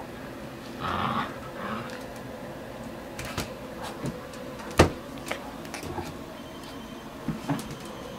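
Scuffling and scattered knocks of a husky puppy's tug-of-war with a braided rope toy and a handheld phone, the loudest a sharp knock just before five seconds in.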